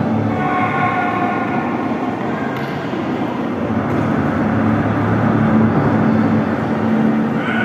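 Dramatic soundtrack music for a projection show: a dense rumbling drone with several long held tones over it, no clear beat.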